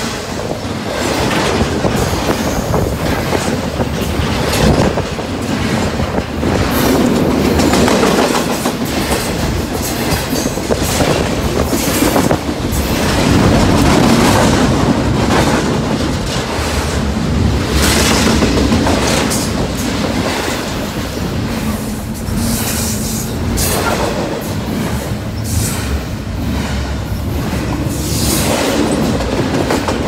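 Double-stack intermodal freight train rolling past close by: a steady loud rumble of steel wheels on rail, with repeated clicks as the wheels cross the rail joints.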